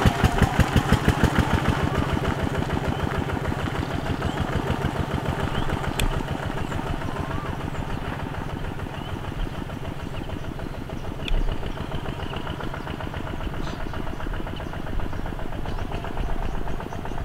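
Single-cylinder diesel engine of a two-wheel tractor chugging steadily as it pulls a loaded trailer, growing fainter as it moves away.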